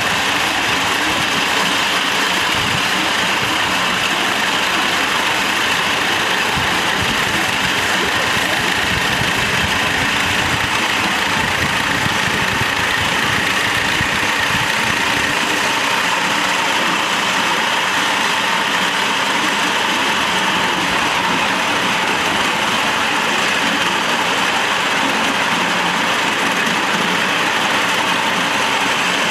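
A 5-inch gauge live steam locomotive and its riding car running along the track at speed, heard from the car. The running noise of wheels on rail and the locomotive is loud and steady throughout.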